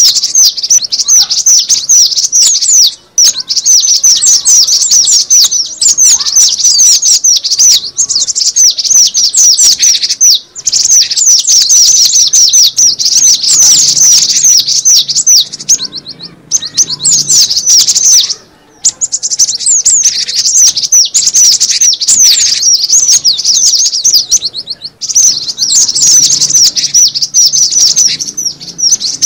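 Gelatik batu (cinereous tit) bird-lure call: a dense, fast run of high chirps with only a few short breaks.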